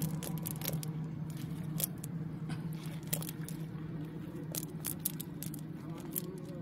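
Hands handling a wet fishing net, the mesh rustling and crackling with many small irregular clicks and snaps as it is pulled and picked over. A steady low hum runs underneath.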